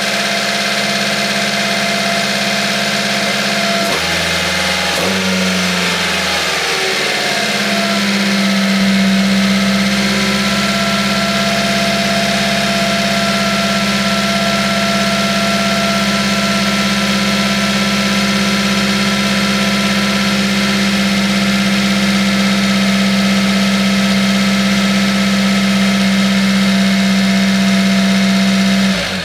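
Subaru Sambar's EN07 660 cc inline four-cylinder engine idling, still cold from a winter cold start, heard close up through the open rear engine bay. About four seconds in the note shifts, with a few seconds of falling tones, then settles into a steady, slightly louder idle. It cuts off suddenly at the very end.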